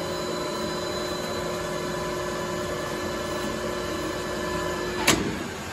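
Metal lathe running with a steady whine from its drive while a hand file is held against the spinning workpiece to clean it up. About five seconds in there is one sharp clunk and the whine stops as the lathe is shut off.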